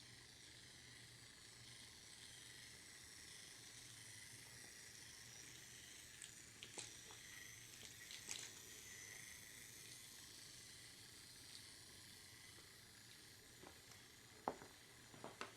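Near silence: faint room hiss with a few soft clicks.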